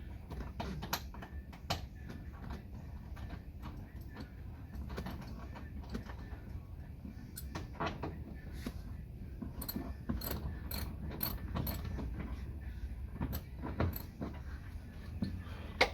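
Metal clinks, clicks and knocks of tools and parts being handled during car interior work, irregular, with a quick run of clinks about ten seconds in and a sharper knock near the end.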